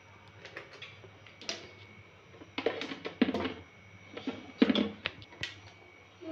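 Steel kitchen utensils knocking and clinking as they are picked up and set down on a counter: several short clatters with a brief ring.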